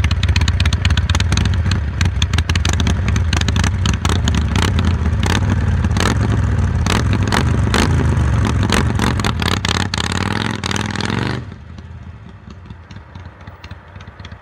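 Harley-Davidson Iron 883's 883 cc V-twin running loud through a Jekill & Hyde valve exhaust, its pitch rising and falling in the middle. About eleven seconds in the sound drops suddenly to a much lower level.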